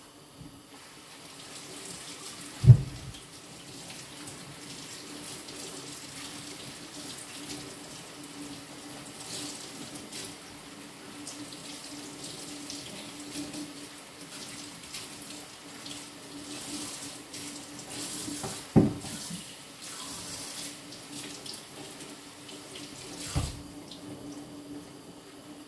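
Kitchen tap running into a stainless-steel sink while something is rinsed by hand under it. Three sudden dull knocks sound against the sink: a sharp one about three seconds in, and two more in the last third.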